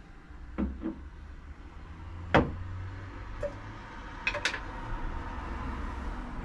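Kitchen knocks and clicks over a steady low hum: two light knocks under a second in, a sharp loud knock about two and a half seconds in, and a pair of clicks around four and a half seconds.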